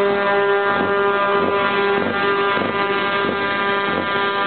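Scania R500's V8 diesel engine running at a steady low speed through loud open exhaust pipes as the truck rolls slowly past, giving one steady droning tone.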